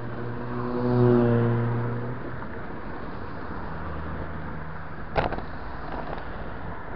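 Steady wind and road rush on a bike-mounted camera. About a second in, a motor vehicle passes close by, its engine note swelling and fading, the loudest sound here. A fainter engine hum follows, then a single sharp knock a little after five seconds.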